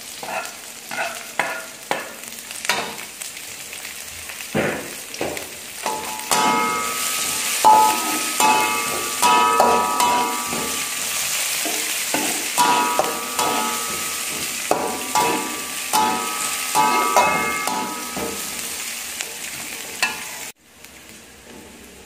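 Chopped shallots, garlic and bird's eye chillies sizzling in hot oil in a metal wok, stirred with a metal spatula that scrapes and strikes the pan again and again, some strikes making the wok ring. The sizzle gets louder about six seconds in and cuts off suddenly near the end.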